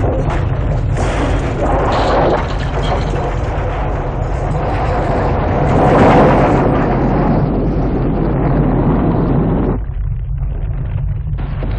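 Film earthquake sound effects: a steady deep rumble under loud crashing and splintering of a collapsing wooden stunt track, heaviest about six seconds in. Near the end the crashing drops away for about a second and a half, leaving the rumble alone, before noise returns.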